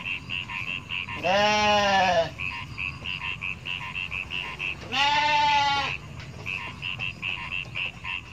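Sheep in a moving flock bleating, two long bleats about four seconds apart, each about a second long. Under them, frogs croak steadily, about three short high calls a second.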